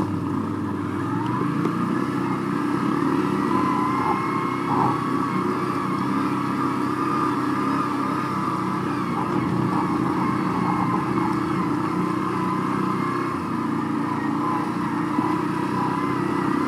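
The single-cylinder engine of a 160cc twin-exhaust pit bike running at a fairly steady speed while being ridden along a rough grass track.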